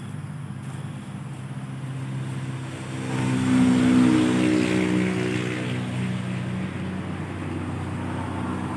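Road vehicle engine noise: a steady low engine hum, with a vehicle swelling louder about three seconds in as it passes, then easing off again.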